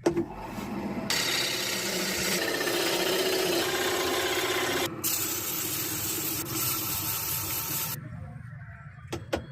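Woodturning lathe with a chisel cutting into spinning wood: a steady scraping hiss that sets in about a second in, shifts abruptly halfway, and stops shortly before the end.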